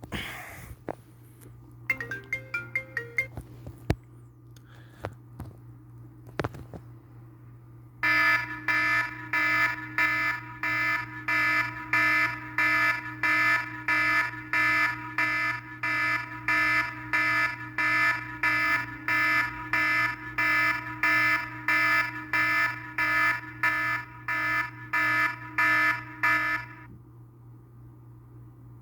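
An iPhone 6s playing an alert tone through its speaker: a bright electronic tone pulsing about twice a second for nearly twenty seconds, then cutting off. It is preceded by a short run of quick notes and a few light taps.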